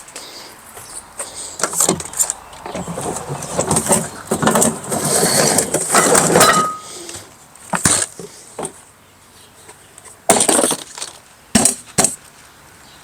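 Clattering, scraping and knocking of a plastic rolling toolbox being handled and moved around, in irregular bursts through the first half, then a few sharp separate knocks near the end.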